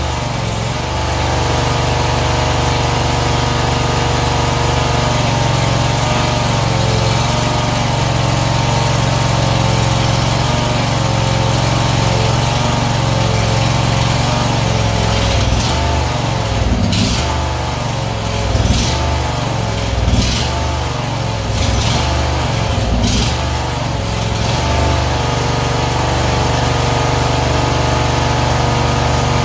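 Predator V-twin engine on a lift running steadily at idle. In the middle its speed wavers a little, and a handful of sharp clicks sound.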